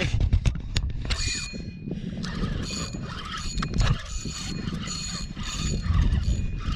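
Fishing reel being cranked in repeated spells of whirring, ratcheting winding with short pauses between, over a steady low rumble.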